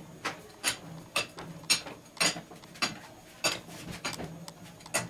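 Sharp metallic clicks, about two a second, from a wrench working the camshaft bearing cap bolts as the camshaft is taken off the cylinder head.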